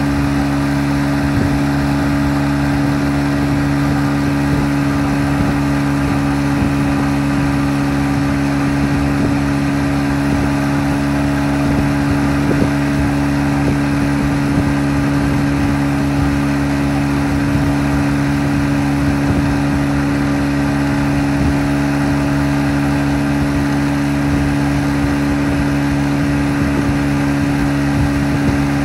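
Tow boat's engine running steadily at towing speed, a constant drone that does not change.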